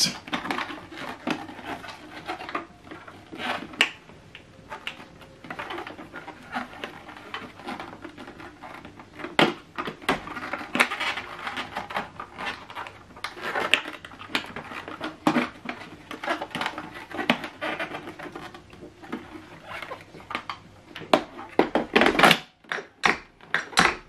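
Plastic clicks, knocks and rattles from the red dust container of a Hoover Whirlwind bagless cylinder vacuum as it is handled and fitted onto the body, with a few sharper knocks along the way. The vacuum's motor is not running.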